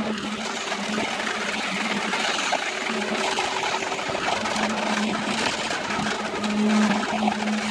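Concrete pump pouring wet concrete through its hose onto a rebar-reinforced roof slab: a steady rushing noise, with a steady machine hum that drops out and returns several times.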